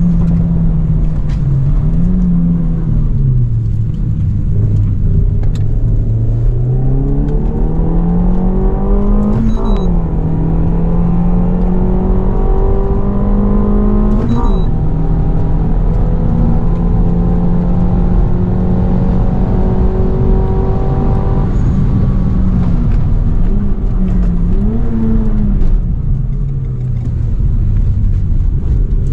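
Renault Megane RS Trophy's 1.8-litre turbocharged four-cylinder engine heard from inside the cabin under hard driving. The revs climb and then drop suddenly at a gear change about ten seconds in and again about fifteen seconds in. Later the pitch wavers and falls as the car slows.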